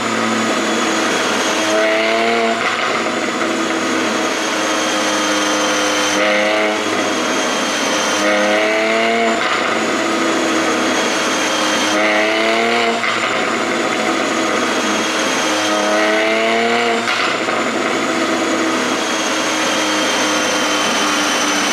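Porsche 718 Boxster 4.0 GTS's flat-six engine and exhaust, running on an ECU tune made for exhaust pops. The engine is revved up in short swells about every two to four seconds, with a steady high whine in between.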